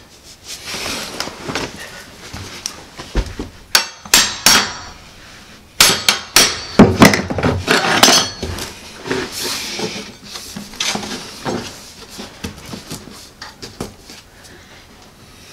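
Allen Roth Swiftlock laminate planks being fitted and tapped into place with a hammer against a scrap block. It is a string of irregular sharp knocks and clattering, thickest in the middle.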